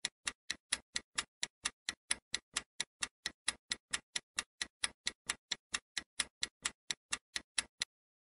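Countdown-timer sound effect: sharp clock-like ticks at an even pace of about four a second, stopping shortly before the end.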